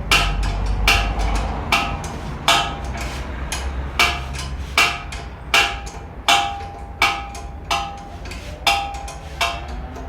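Hammer blows on metal, about one every three-quarters of a second, each strike ringing briefly, over a low steady hum.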